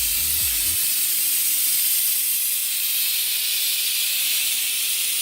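Fluid extractor hissing steadily as it draws fuel out of a truck's fuel tank.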